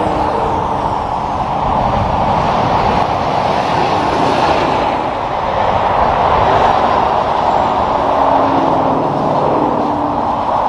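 Highway traffic: tractor-trailers and cars passing at speed, a steady rush of tyre noise, with a truck's engine drone showing faintly near the end.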